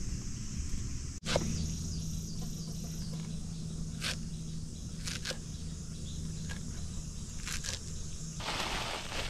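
Outdoor ambience with insects droning steadily at a high pitch, under a low steady hum. A few sharp clicks are scattered through it, and a louder rustling noise starts near the end.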